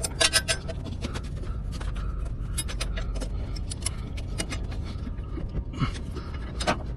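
Metal clinking and scraping, a quick run of sharp clicks just after the start and more scattered through, as heavy steel brake parts and tools are handled, over a steady low rumble.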